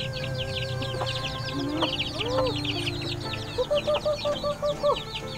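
A brood of chicks peeping rapidly and continuously, with hens calling among them. Near the end comes a quick run of about seven even clucks.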